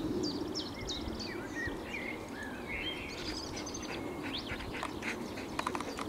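Songbirds singing and calling in the surrounding trees: many overlapping chirps and quick down-slurred whistles, over a steady low background noise.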